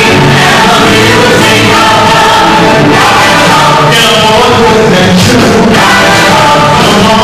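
Live stage musical number: several cast members singing into handheld microphones over loud musical accompaniment, the voices and music steady throughout.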